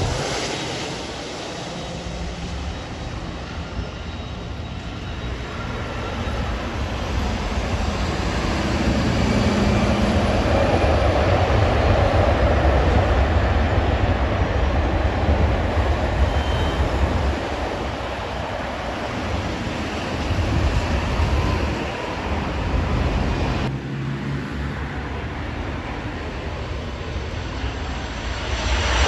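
Airplane engines running as an aircraft moves past, the noise swelling to its loudest about ten seconds in and then easing off, rising again near the end.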